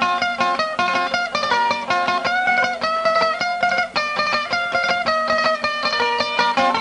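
Mejorana, the small Panamanian folk guitar, played alone in a fast run of plucked notes over a steady low drone.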